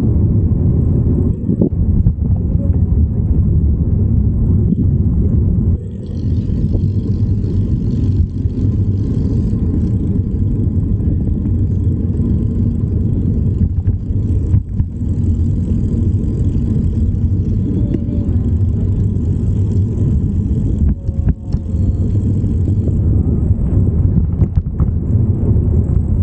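Steady, loud low rumble from a camera riding along on a Brompton folding bike, dipping briefly twice.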